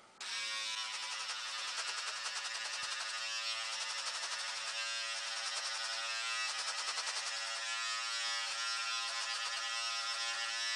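Remington electric beard trimmer switched on just after the start, then buzzing steadily as it cuts through a long, thick beard, its tone shifting a little as the blades bite into the hair.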